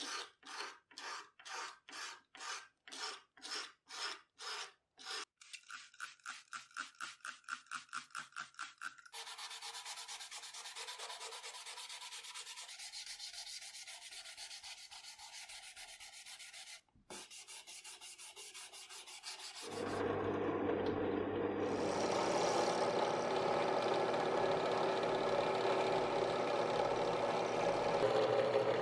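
A steel blade scraping an epoxy resin handle in even strokes, about two a second, then quicker at about four a second. Then sandpaper rubbed quickly back and forth over the resin. About twenty seconds in, a drill press motor starts and runs steadily as it bores into the handle.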